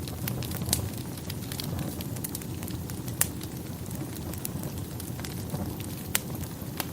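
Wood fire burning in a fireplace: a steady low rumble of flames with scattered sharp crackles and pops, the loudest about a second in, midway, and near the end.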